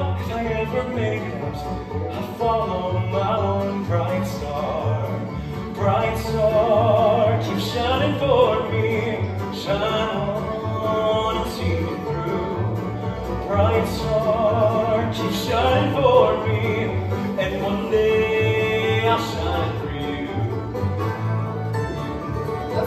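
A live musical-theatre song: a singer's voice with vibrato carrying a melody over a bluegrass-style band with a steady bass line.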